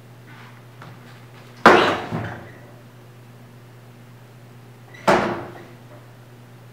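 Two loud thumps about three and a half seconds apart, each with a short echo, the first followed by a smaller knock: a hand slapped down on a wooden tabletop.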